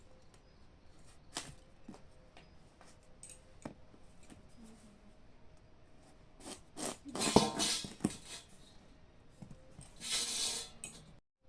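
Kitchen food-preparation handling sounds: scattered light clicks and knocks, with louder stretches of scraping and rustling about seven seconds in and again about ten seconds in.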